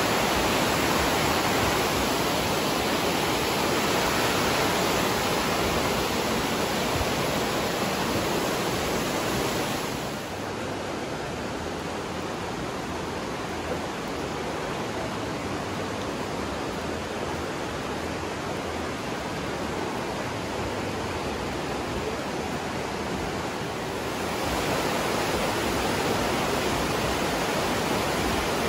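The Aare river rushing through a narrow rock gorge: a steady, even wash of fast-flowing water. About a third of the way in it turns softer and duller, and near the end it comes back fuller.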